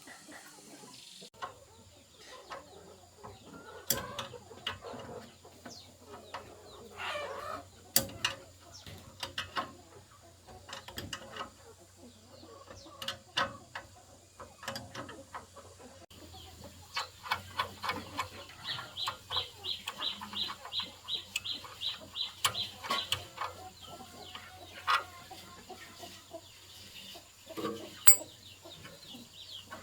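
Scattered sharp knocks and clinks of hand-tool work on machinery, with a fast, even ticking of about four a second for some five seconds midway. Chickens cluck in the background.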